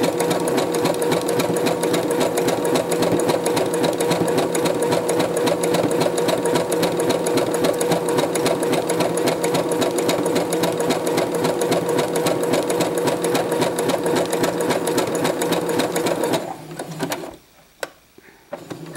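Electric sewing machine running steadily as it sews a zigzag stitch, its needle strokes even and fast. It stops suddenly about two and a half seconds before the end, followed by a few light clicks.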